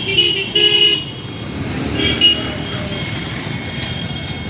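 Vehicle horns honking several short times in the first second and once more briefly about two seconds in, over steady road traffic noise.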